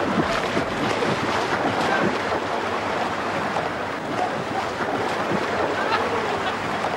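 Choppy swimming-pool water splashing and sloshing in a steady wash of noise.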